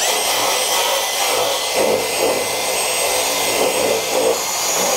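Cordless drill spinning a cup bristle brush against galvanized steel scupper flashing: a steady abrasive scrubbing with a high motor whine, scuffing the shiny factory finish rough so torch-down bitumen will bond. It cuts off right at the end.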